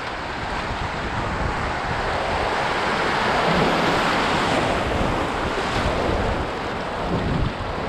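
River rapids rushing around a canoe's bow as it runs through whitewater, growing loudest about halfway through as the bow drives through the standing waves, then easing.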